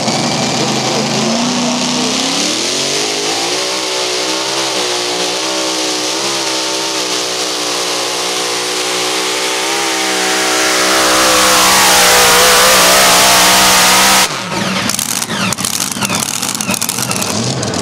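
Mini rod pulling tractor's engine at full throttle on a pull. It revs up over the first couple of seconds, holds high revs with a wavering pitch, then climbs higher and louder from about ten seconds in. The sound cuts off abruptly about fourteen seconds in, and rough, uneven running follows.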